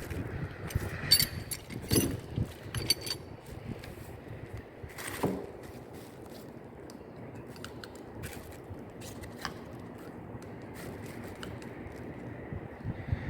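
Hand-work noises from plumbing parts and tools being handled: several sharp clicks and clinks, some with a short metallic ring, in the first few seconds. A scrape comes about five seconds in, then occasional light clicks over steady outdoor background noise.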